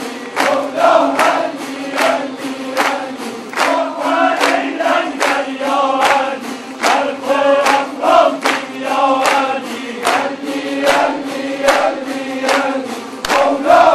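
A crowd singing together in unison over a steady held drone, with the whole group clapping hands on a steady, even beat.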